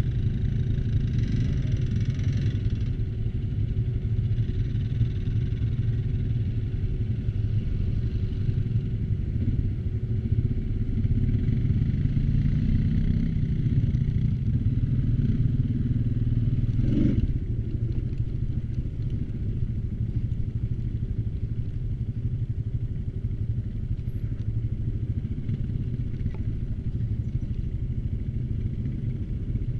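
ATV engine running under way, its pitch rising a little before the middle as it speeds up, then settling slightly lower. A single sharp knock is heard a little past the middle.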